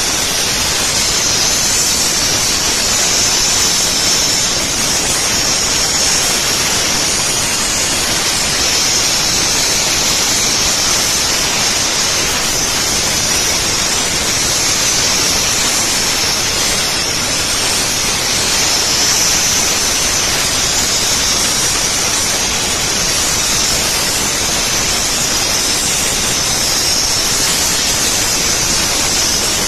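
Commercial steam cleaner's spray gun jetting steam onto a motorcycle's exhaust pipes: a loud, steady hiss with a bright high edge that swells slightly now and then.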